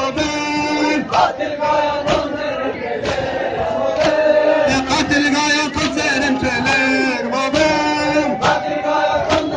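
Male voices chanting an Urdu noha, a Shia mourning lament, with sharp hand slaps about once a second from men beating their chests in matam.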